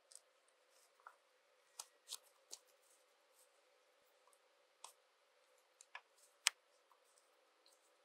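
Faint, scattered clicks and plastic snaps from a blue drip tape starter connector being pushed into a hole in black polyethylene pipe and its locking collar turned. The sharpest click comes about six and a half seconds in.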